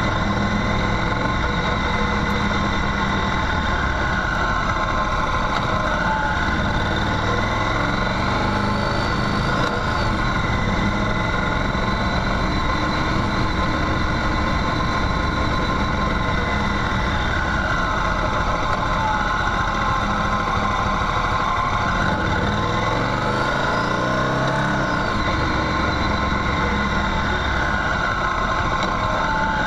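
Motorcycle engine running, heard from on board the bike on a gravel track, with its pitch rising and falling several times as the revs change.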